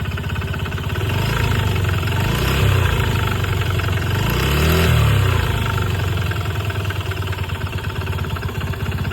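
Honda Gyro Canopy scooter engine idling with a fast, steady knocking rattle ("koto-koto, kata-kata"), the throttle blipped twice so the revs rise and fall. The owner suspects a worn bearing, piston or connecting rod.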